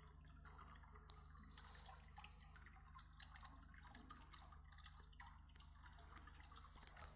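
Faint dripping and trickling of aquarium water, with a steady low hum underneath.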